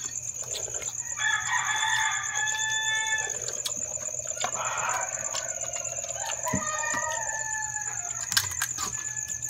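A rooster crowing twice: one long crow about a second in and a shorter one near the end. A steady high insect trill runs underneath.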